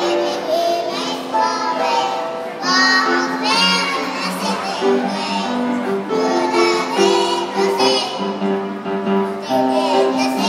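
A group of voices singing a song together, with several parts on held notes that shift every second or so.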